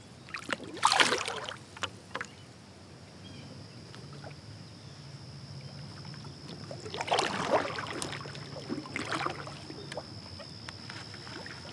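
Water splashing beside a kayak as a smallmouth bass is let go, about a second in, then kayak paddle strokes dipping and splashing in the water later on. A faint steady high tone runs underneath in the second half.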